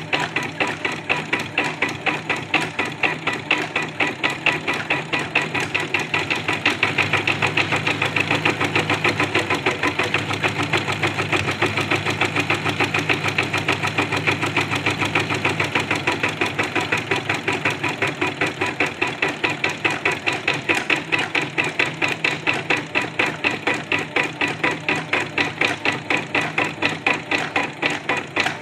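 Janome Secio computerised embroidery machine stitching out a design: a rapid, even run of needle strokes that goes on steadily throughout.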